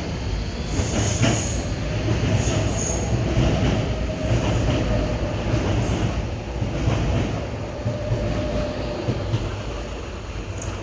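Train running on the rails: a steady low rumble of wheels with several short bursts of high-pitched wheel squeal, most of them in the first half.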